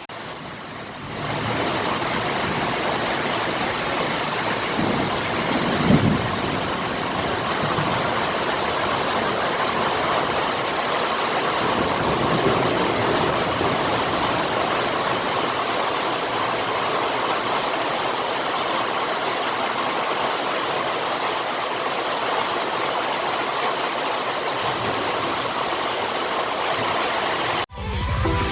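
Heavy rain mixed with hail pouring down in a steady hiss, with one brief louder low sound about six seconds in. Music cuts in just before the end.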